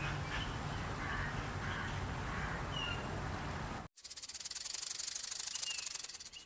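Outdoor ambience with a low rumble and a few short, down-slurred bird chirps. After a sudden cut near the middle, a fast, dry, high-pitched rasping pulse with many strokes a second takes over, with an occasional chirp.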